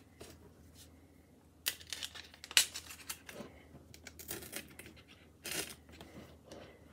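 Foil cupcake liners crinkling and rustling in several short, irregular bursts as fake cupcakes are handled and pressed onto toothpicks in a foam-filled pot.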